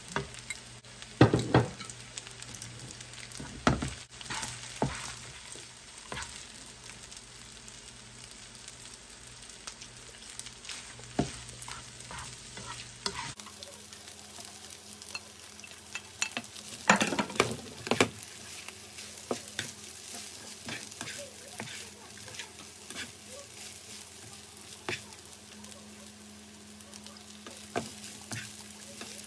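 Fried rice with diced sausage sizzling in a nonstick frying pan while it is stirred and tossed with a utensil, which scrapes and clicks against the pan, with louder clatters now and then.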